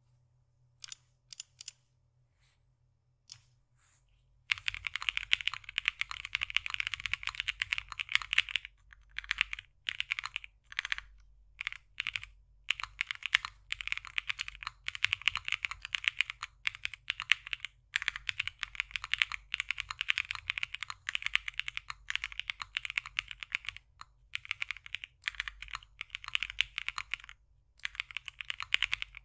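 Typing on a custom mechanical keyboard (aluminium case, POM half plate, tape-modded flex PCB) with lubed JWK Prevail Epsilon switches and CRP keycaps: a few single keystrokes, then steady fast typing from about four and a half seconds in, broken by brief pauses.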